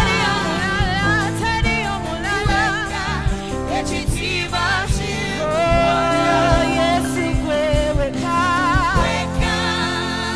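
Live gospel worship music: several voices singing with vibrato over a Yamaha MOXF8 keyboard and an acoustic-electric guitar.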